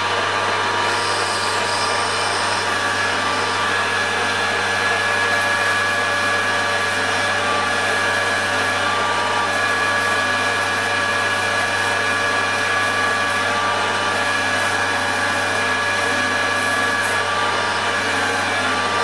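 Metal lathe running steadily, its motor and gears giving a constant hum with several steady whining tones.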